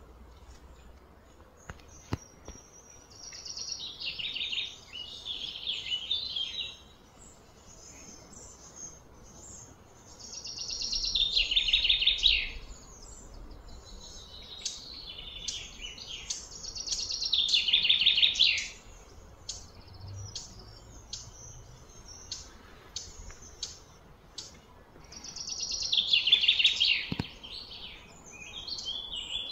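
A songbird singing: four high, trilling song phrases of a few seconds each, repeated every six to eight seconds, with softer chirps between them.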